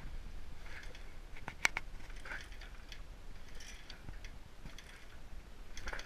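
Faint handling noise: scattered light clicks and rustles, with one sharper click about a second and a half in.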